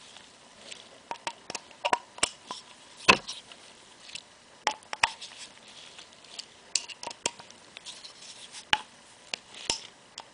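Irregular sharp metal clicks and ticks of a hand tool working the small screws on a Scotts steering damper body as they are tightened, with a louder knock about three seconds in.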